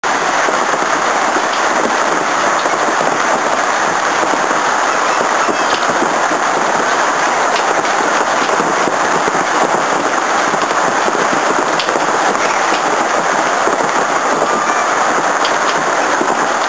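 Severe hailstorm: a loud, unbroken clatter of hailstones pelting a deck and patio furniture, dense steady noise with many sharp individual impacts.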